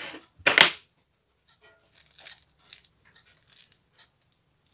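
Cabbage leaves being torn and handled while rolling tolma: a crinkly tearing sound, loudest about half a second in, with softer rustles around two and three and a half seconds in.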